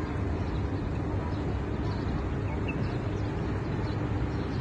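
Steady low rumble of outdoor city ambience, with faint, scattered bird chirps.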